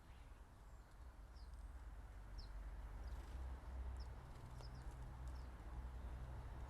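Small garden birds at a feeder giving a handful of short, high chirps, scattered and irregular, over a faint low rumble.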